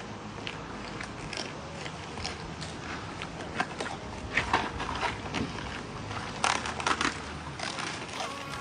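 A dog eating: irregular crunching and clicking bites and chews, with a louder run of bites about six and a half seconds in.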